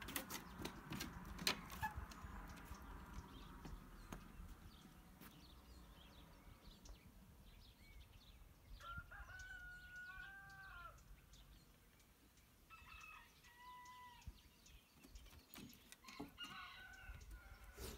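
Faint bird calls: one long, drawn-out call about nine seconds in, then shorter calls later on and near the end. A few light taps in the first two seconds.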